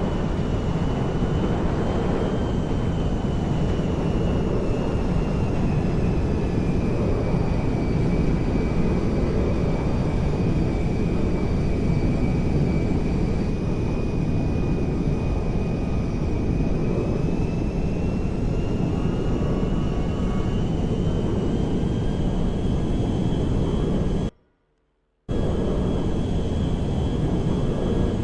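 Airplane engine running steadily, with a high whine that slowly drops in pitch and then rises again. The sound cuts out completely for about a second near the end.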